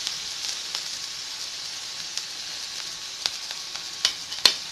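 Chopped onion and green chillies sizzling in hot oil in a wok: a steady hiss, with a few sharp clicks in the second half, the loudest near the end.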